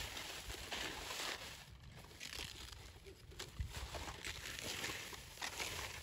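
Dry, ripe wheat stalks rustling and crunching as they are cut by hand and gathered into a bundle, in short bursts a second or two apart.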